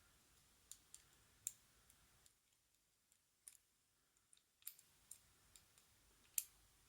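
Faint, irregular small clicks of a lock pick working the pin stacks of a Master Lock 410 lockout padlock under tension, with sharper clicks about a second and a half in and again near the end.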